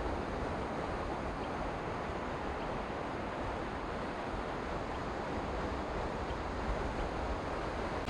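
Low surf breaking and washing up a flat sandy beach: a steady wash of waves that swells slightly near the end.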